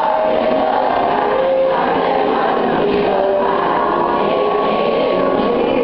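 A class of fifth-grade children singing together as a group, holding some long notes.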